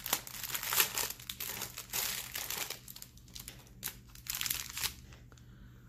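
Clear plastic bag of diamond painting drills crinkling as it is handled, busiest in the first couple of seconds, then a few scattered crinkles.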